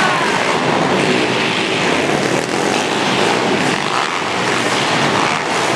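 Several Pitster Pro pit bikes' small single-cylinder four-stroke engines running as the bikes race round the dirt track.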